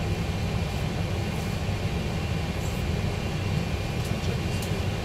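Steady low mechanical rumble, like an idling vehicle engine, with a few faint ticks.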